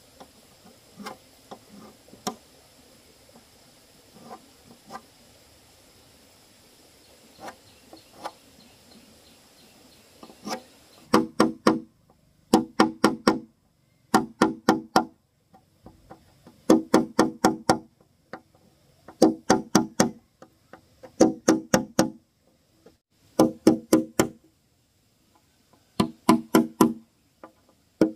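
Hammer knocking along a marked line on a corrugated roofing sheet to break it. Light, scattered taps at first, then from about a third of the way in, quick groups of three or four knocks about every two seconds.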